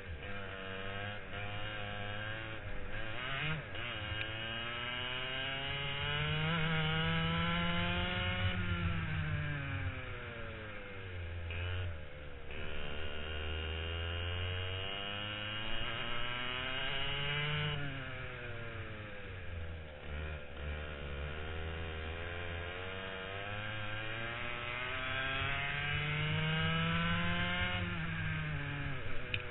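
Two-stroke racing kart engine heard from on board, revving up in long climbs on the straights and dropping off into the corners, three times over.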